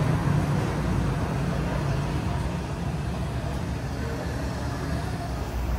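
Steady low rumble of a motor vehicle engine running, with no clear events.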